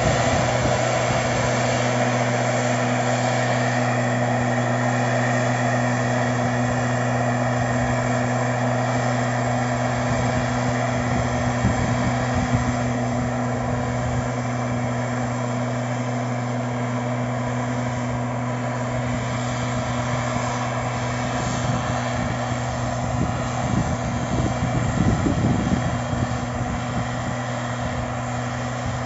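Stihl SR 420 backpack mist blower's two-stroke engine running steadily at high revs, its fan blowing spray mist out of the nozzle: an even, unchanging drone that fades a little as the sprayer moves away.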